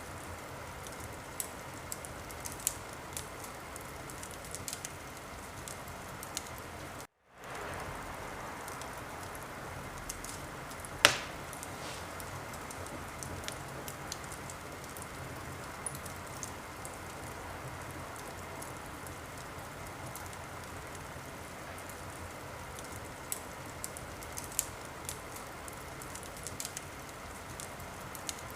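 Wood fire in a fireplace burning with a steady hiss and scattered small crackles, and one much louder pop about eleven seconds in. The sound cuts out completely for a moment about seven seconds in.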